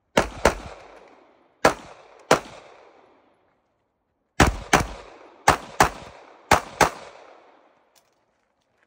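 Semi-automatic pistol fired as a competitor shoots a stage: ten shots in five quick pairs, each pair about a third of a second apart (one pair a little slower), every shot trailing off in an echo of about a second.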